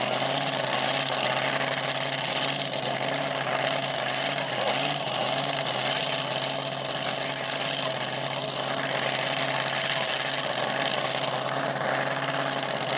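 Supercharged pulling-truck engine idling steadily, with no revving.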